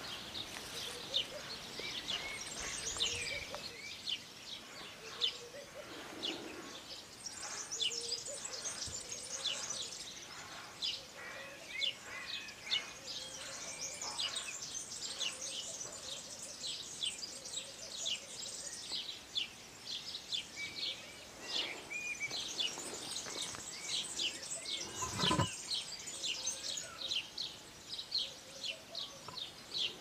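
A chorus of many small birds chirping continuously, a dense stream of short, high, quickly falling notes. A single dull thump about 25 seconds in.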